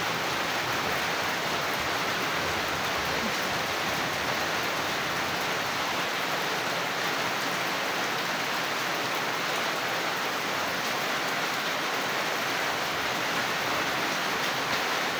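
Heavy rain falling steadily, splashing into puddles across a waterlogged yard.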